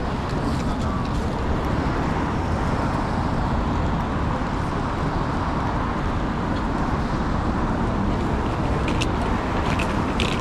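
Steady city street traffic noise, with the continuous rumble of cars passing. A few light clicks come near the end.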